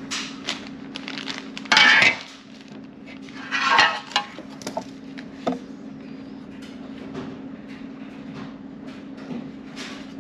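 Small clicks, clinks and scrapes of hand tools and parts working on a MacBook Pro's aluminium top case, with two louder scrapes about two and four seconds in. A steady low hum runs underneath.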